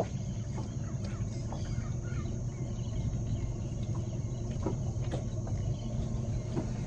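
Birds chirping now and then from the riverbank forest over a steady high insect drone, with a low steady rumble underneath.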